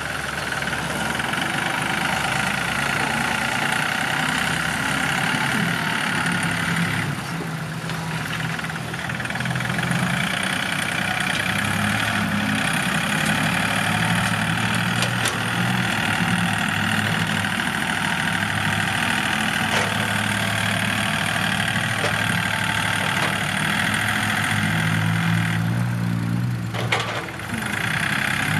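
Yanmar EF393T tractor's diesel engine running steadily under load while its front blade pushes soil. The engine note eases briefly twice, about a quarter of the way in and near the end.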